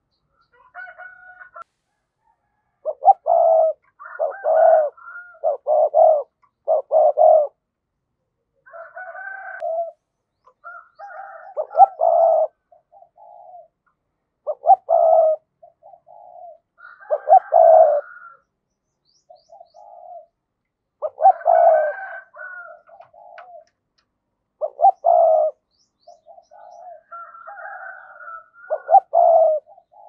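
Spotted dove cooing: repeated phrases of short, deep coo notes, about ten phrases with pauses of a second or two between them.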